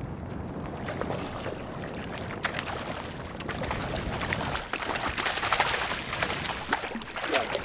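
Water splashing as a hooked bonefish thrashes at the surface right beside a skiff: a crackle of small splashes that grows loudest between about four and a half and six and a half seconds in.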